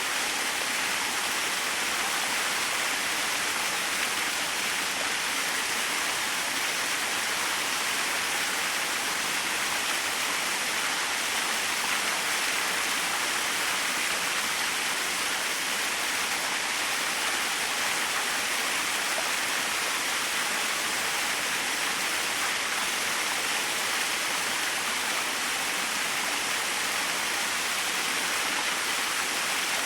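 Small waterfall splashing and rushing steadily: an even, hissing wash of water with no changes.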